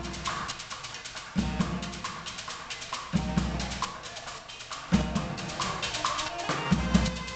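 A subway bucket-drum band playing: fast drumming on upturned plastic buckets and a drum kit, with a heavy bass-drum hit about every two seconds, and two saxophones playing over it.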